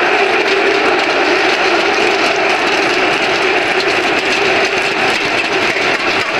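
Loud, steady din of a packed football stadium crowd, many thousands of voices blending into one continuous roar.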